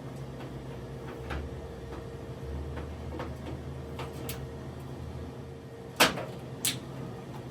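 Faint clicks and taps as the parts of a 3D-printed quick-turn knob are handled and fitted into a laser cutter's cabinet door, then two sharp knocks about six seconds in, over a steady low hum.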